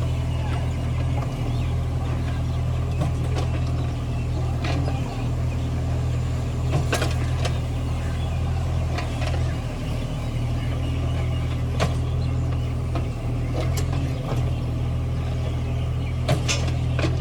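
Mini excavator engine running steadily under load, with scattered sharp metallic clanks.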